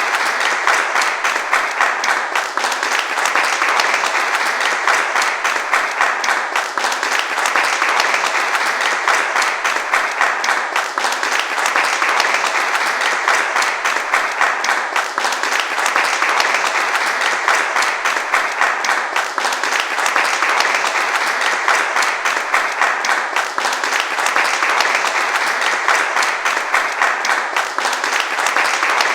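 Crowd applauding steadily: a dense, unbroken patter of many hands clapping, swelling slightly every few seconds.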